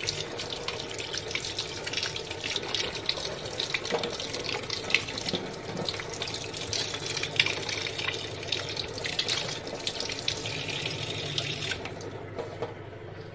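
Kitchen tap running onto frozen meat and fish in plastic trays in a stainless steel sink, splashing steadily as they are thawed under the water. The flow dies away about twelve seconds in.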